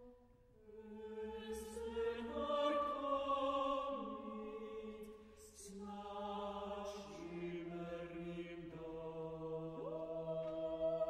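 Chamber choir singing a slow requiem in sustained chords that shift every second or two, with a few soft hissed consonants.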